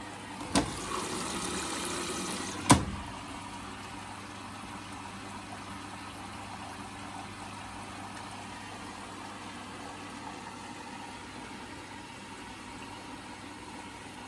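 Washing machine filling with water after its inlet valves were replaced: a click, about two seconds of louder rushing water ended by a sharp click, then a steady quieter flow of water.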